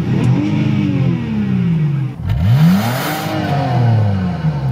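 Car engine free-revving while parked, blipped twice. The revs fall away from a high point at the start, rise sharply again about two seconds in, then drop slowly back.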